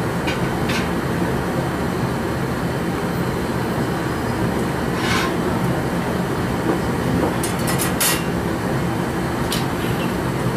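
Steady roar of a glass studio's gas-fired furnace and glory-hole blowers, with a few light metallic clicks and taps as the steel blowpipe is turned on the bench arms.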